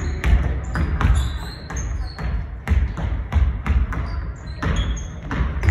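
Basketballs bouncing on a gym floor in irregular thuds, with short high squeaks of sneakers on the court.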